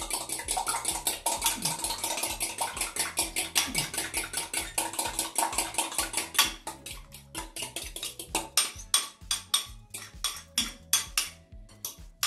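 A fork beating an egg in a ceramic cup: rapid clinking strokes, about eight a second, that turn slower and irregular about halfway through.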